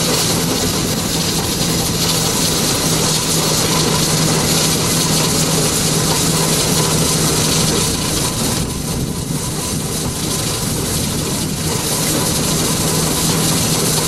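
Fowler BB1 steam ploughing engine hauling a six-furrow balance plough on its wire cable: a steady hiss and rumble of working steam with a continuous low hum.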